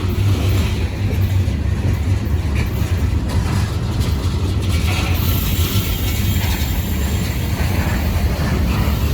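Freight train cars rolling past close by: a steady, loud rumble of steel wheels on the rails with a few faint clicks.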